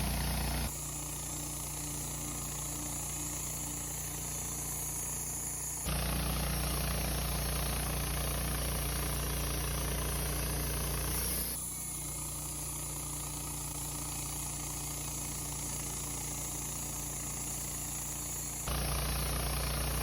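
Wood-Mizer band sawmill running while milling Douglas fir logs, a steady engine hum. It switches abruptly between a louder and a quieter version of the hum several times.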